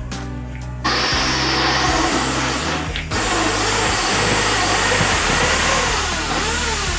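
Corded electric drill running as it bores into the base of a cabinet frame. It starts about a second in, stops briefly near three seconds, then runs again. Background music plays throughout.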